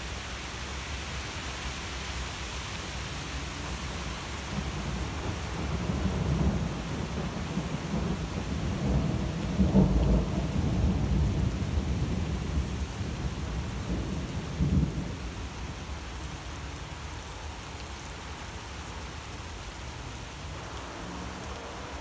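Thunder rolling overhead: a deep rumble swells a few seconds in, is loudest about halfway through, gives one more short peak, then fades away. A steady hiss runs underneath it.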